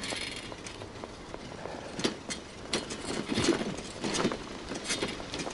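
Footsteps, about one step every 0.7 seconds from about two seconds in, with a rustling hiss around them.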